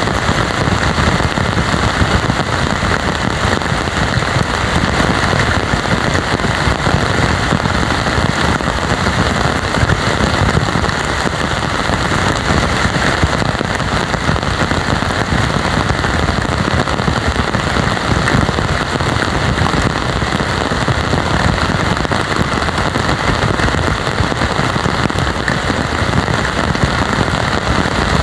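Heavy rain pouring down steadily, a dense, even patter of drops hitting the ground and surfaces.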